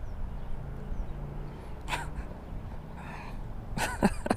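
Steady low rumble of wind and handling on a worn action-camera microphone, with a couple of short, breathy vocal sounds from the angler. The louder one comes near the end.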